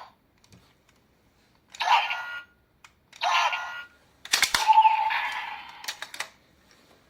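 Sound effects played through the small speaker of a Bandai DX Ultraman Tiga key toy: two short bursts, then a click about four seconds in and a longer effect with a held tone.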